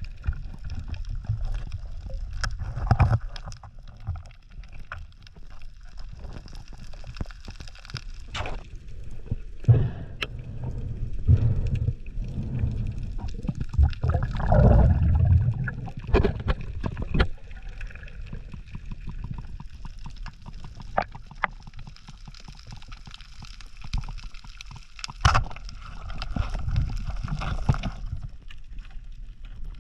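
Water sloshing and gurgling around a head-mounted action camera in the sea, in surges that swell and fade, with sharp clicks and knocks now and then.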